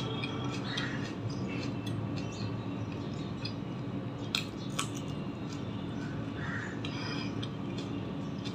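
Close-miked eating sounds: chewing paratha and tearing more paratha by hand, with small clicks and taps on a plate, the two sharpest clicks coming about four and a half seconds in. A faint steady hum sits underneath.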